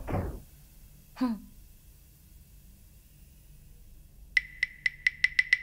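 Soundtrack sound effects: a short, loud falling swoop about a second in, then from about four seconds in a quick, even run of short high ticks, about four to five a second.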